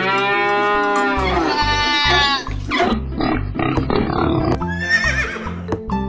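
Upbeat background music with a steady bass beat, overlaid with a farm-animal sound effect: one long, drawn-out livestock call lasting about the first two and a half seconds.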